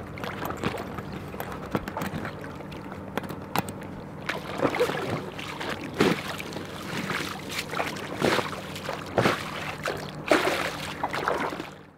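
Water splashing and dripping as hands pull clumps of drifting river weed off a floating buoy at the side of a boat, with a handful of louder splashes among the irregular sloshing, over a faint steady low hum.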